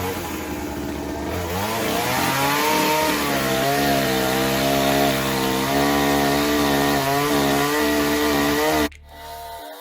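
Blue Max chainsaw running at full throttle, its engine pitch climbing about two seconds in and then wavering as it cuts through dogwood. The saw sound cuts off abruptly near the end, and quieter music follows.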